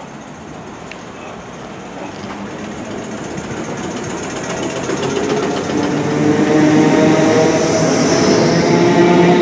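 British Rail Class 455 electric multiple unit pulling slowly along the platform, its traction motors whining over a rumble of wheels. The sound grows steadily louder, with the motor whine building from about halfway through as the train gathers speed past.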